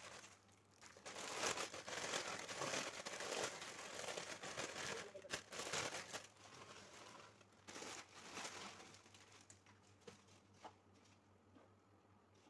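Plastic bag crinkling as dried pancit canton noodles are handled and shaken out of it, for most of the first nine seconds. Then it goes quieter, with a few light clicks near the end as the noodles are stirred in the pot.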